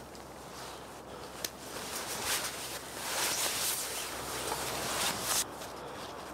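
Rustling of a puffy jacket and backpack in several bursts as a hiker takes the pack off and sets it down in the snow, with one brief click about a second and a half in.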